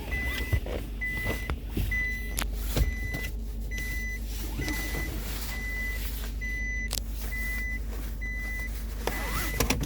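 Nissan Navara seat belt warning chime beeping steadily, about one short high beep a second, over the low rumble of the cab. It is a rear-seat belt reminder sounding for an empty seat, the fault being shown. A few light clicks sound as a passenger moves between the rear seats.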